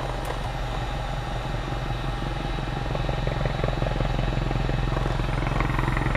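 Piston aircraft engine and propeller running steadily, heard from inside the cabin as a low, evenly pulsing drone that grows slightly louder over the few seconds.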